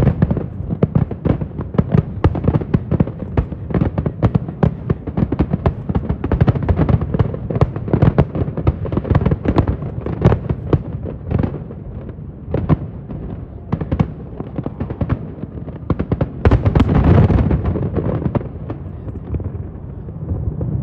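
Fireworks display: a dense, rapid string of sharp bangs and crackles, thinning out about halfway through, then a louder rumbling cluster of bursts near the end.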